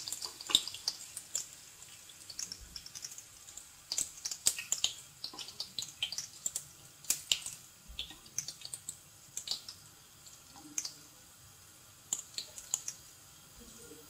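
Hot oil crackling and spitting under a yufka börek shallow-frying in a pan: scattered sharp pops at irregular intervals.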